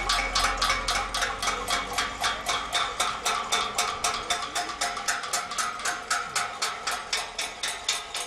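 Metal pan being beaten in a fast, even rhythm of about five strikes a second, each strike a sharp ringing clang: protest pot-banging (cacerolada).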